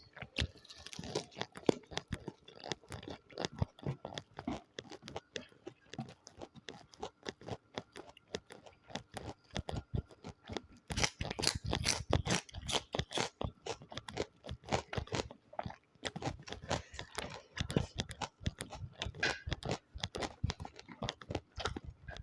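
Close-miked eating sounds: a person chewing and crunching food, with many irregular wet clicks and crunches, busiest about halfway through.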